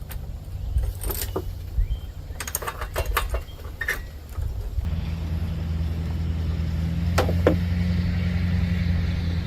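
Husqvarna Z254 zero-turn mower engine: some clicks and rattles over a low hum, then about five seconds in the engine picks up and runs steadily with a louder, even note.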